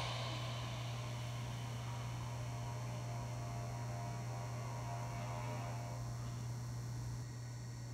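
Steady low electrical mains hum, a little quieter for the last second or so.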